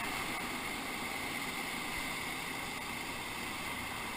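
Steady rushing of river whitewater heard from a raft running a rapid, an even hiss with no breaks.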